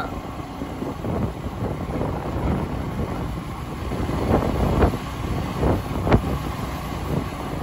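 Small single-cylinder Cub step-through motorbike running along the road, with wind rushing over the microphone and a few sharper thumps in the second half.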